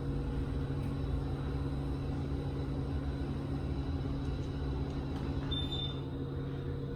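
Hydraulic elevator running during a ride: a steady low hum and rumble from the pump motor and moving cab. A short high beep sounds about five and a half seconds in.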